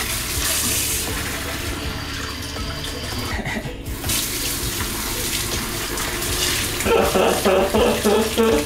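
Kitchen tap running into a stainless steel sink while dishes and hands are rinsed under the stream. A louder, choppy sound joins over the water near the end.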